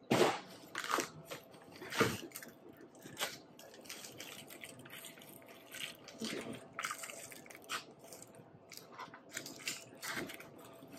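Packing material being handled: bubble wrap and foam sheeting rustling and crinkling in irregular spurts, with the scrape of cardboard, as a wrapped panel is lifted out of a cardboard box.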